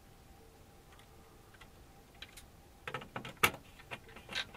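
Quiet room tone, then from about three seconds in a quick run of small clicks and ticks: wires and fingers handled against an alarm control panel's screw terminal block while a wire is set into a terminal.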